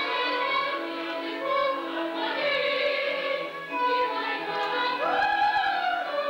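Operetta music: a chorus singing sustained notes with orchestral accompaniment.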